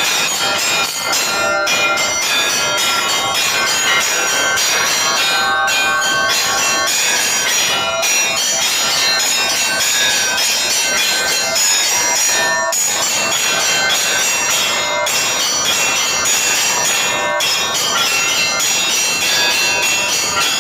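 Russian Orthodox church bells ringing a continuous peal: many bells struck in quick succession, their tones overlapping, with brief breaks every few seconds.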